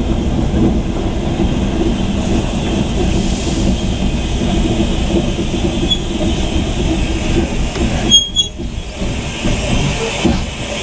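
Brake van running along the rails behind a steam tank engine: a steady rumble of wheels on the track, with a sharp knock about eight seconds in.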